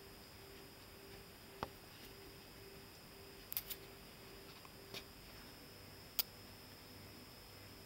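Sharp metal clicks, about five spread irregularly with two close together, from the lockwork of a Hahn .45 revolver being worked by hand; the action works only up to a point.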